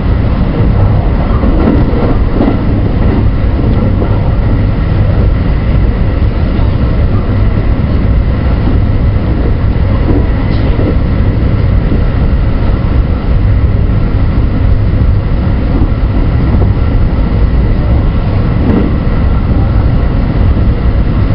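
A JR West 223 series 2000-subseries electric multiple unit running steadily at speed, heard from inside the train at the front: a continuous loud rumble of wheels on rail, with a few faint steady high tones over it.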